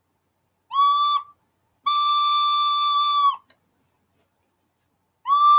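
Soprano recorder playing high D, the note fingered with the thumb hole open: a short note, then a long steady note held about a second and a half, then the same note again near the end.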